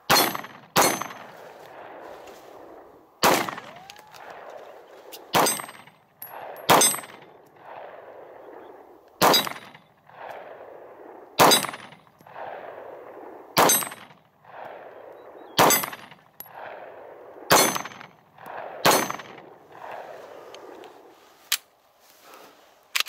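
Canik TP9 9mm pistol fired about eleven times at an unhurried, uneven pace, one to two and a half seconds apart, at steel plate targets; each shot is followed by a metallic ring from the steel being hit.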